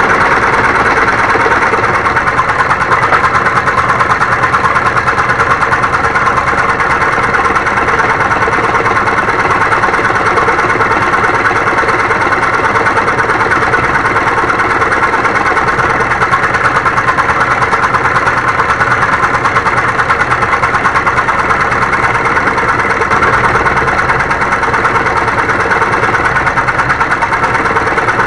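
Homemade scroll saw running steadily, its blade cutting wood.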